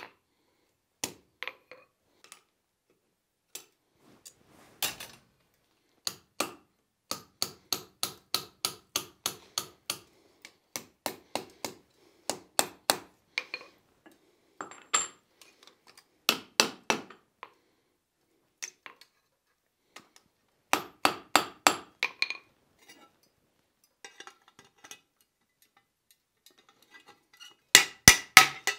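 Blacksmith's hand hammer striking a hot iron hinge strap on an anvil as the hinge eye is closed around its pin. The blows come in runs of about two to three a second, each a sharp ring, with short pauses between runs and the heaviest strikes near the end.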